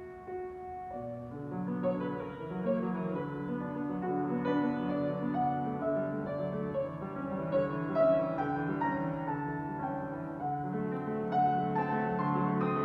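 Yamaha grand piano played solo in a cadenza: a few soft held notes, then about a second in a fuller passage with low bass notes under quick overlapping figures, growing louder toward the end.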